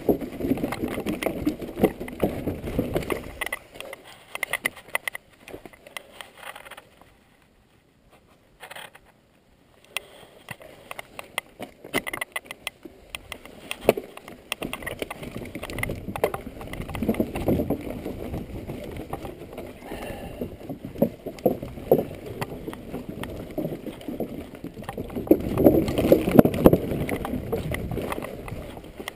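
Mountain bike riding over wooden plank boardwalks and rocky trail: tyres rumbling with many sharp knocks and the bike rattling over bumps. The noise drops almost to silence for a few seconds about eight seconds in, then returns and is loudest near the end on the rough dirt descent.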